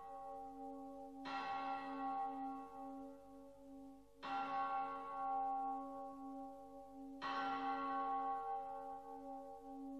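A deep bell tolling slowly: three strokes about three seconds apart, each one ringing on long enough to overlap the next, over a steady low hum.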